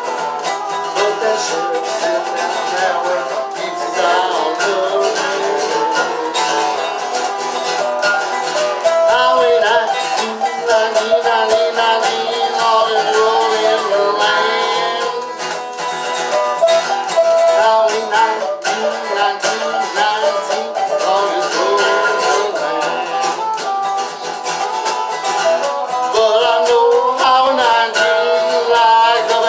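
Acoustic American folk music played on plucked string instruments, a continuous instrumental passage of quick picked notes.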